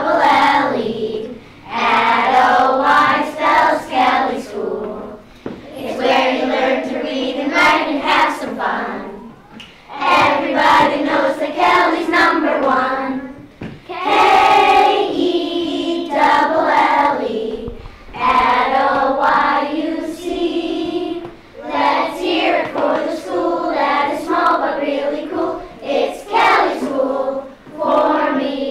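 A group of children singing together, in phrases of about four seconds with short breaks between them.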